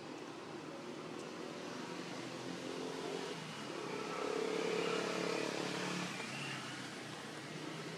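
A motor vehicle's engine passes by, getting louder toward the middle and fading again.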